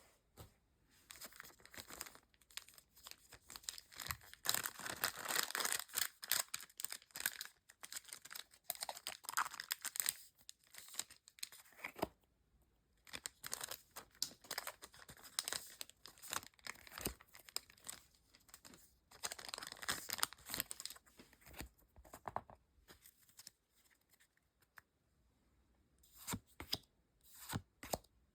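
Foil Pokémon card booster packs being torn open and their wrappers crinkled, in irregular bouts of crackly rustling. The loudest tearing comes about five seconds in, and there is a run of short sharp crackles near the end.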